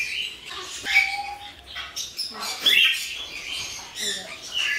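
Parrots squawking and chirping in a string of short, sharp calls, the loudest about a second in and again a little before three seconds.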